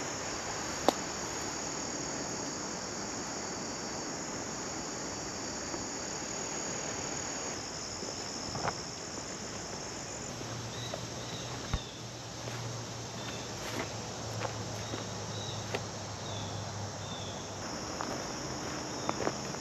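Summer insects, crickets among them, trilling in a steady high chorus. A faint low hum joins for several seconds in the middle, with a few light clicks.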